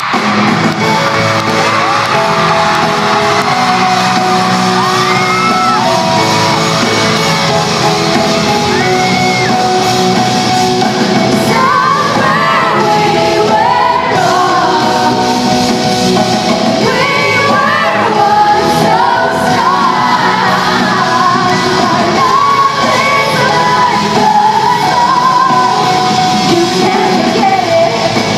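Live pop-rock band playing in an arena, a woman singing lead over guitar and drums, heard from far back in the crowd with a hall's echo; fans shout and sing along.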